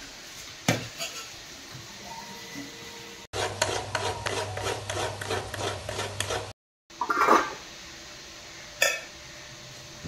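Kitchen utensil sounds in a few quick cuts: a single knock, then a stretch of rapid rhythmic scraping, about four or five strokes a second, of a spoon working food in a steel bowl, then two sharp knocks of metal utensils.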